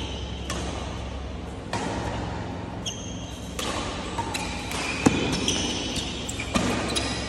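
Badminton rally: sharp racket strikes on a shuttlecock and shoes squeaking on the court floor, the sharpest hit about five seconds in.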